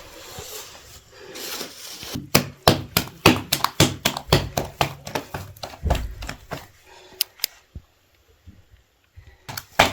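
A rapid series of sharp knocks or slaps, about three or four a second, stopping a little past halfway, with two more near the end.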